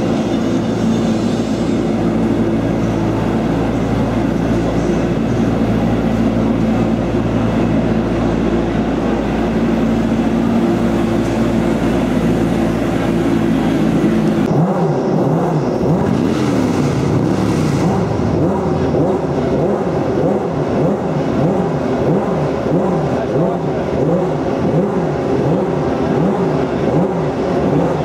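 Loud motorcycle engine sound. It runs at a steady drone for the first half, then changes abruptly to repeated revving, the pitch rising and falling about once a second.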